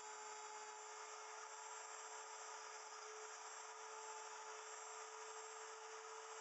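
Wood router running steadily on a router milling machine, cutting into a small block of wood. Its motor gives a constant high hum over an even hiss.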